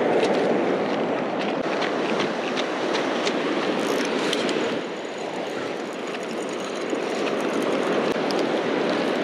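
Steady rush of surf washing up the beach, with wind rumbling on the microphone and a few faint clicks about four seconds in.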